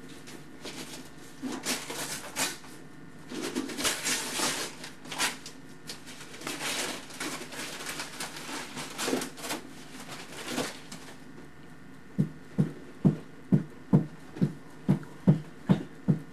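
Wrapping paper, tissue and plastic packaging rustling and crinkling in repeated swishes as a present is unwrapped and handled. About three-quarters of the way through the rustling stops and a run of soft, regular thumps starts, about two a second.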